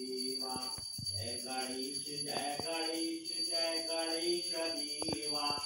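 Background music: a melody of held notes with jingling bells over it.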